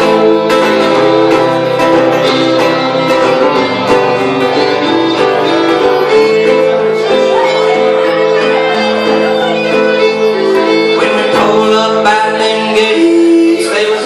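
Fiddle and guitar playing live together: the bowed fiddle holds long melodic notes over the strummed guitar.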